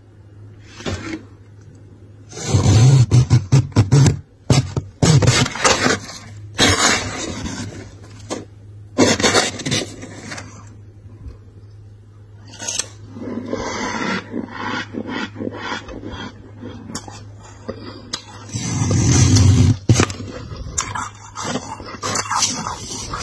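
A spoon scraping and crunching into soft, snowy freezer frost close to the microphone, in irregular strokes that are loudest a few seconds in and again about nineteen seconds in. A low steady hum runs underneath.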